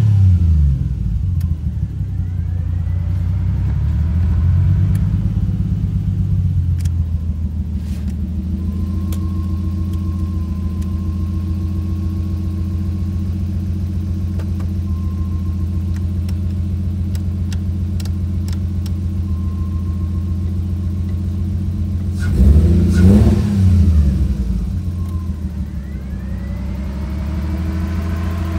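Turbocharged Nissan RB20 straight-six in an S13 idling steadily. It is revved briefly at the start, gently about five seconds in, and twice sharply about 23 seconds in, then settles back to idle.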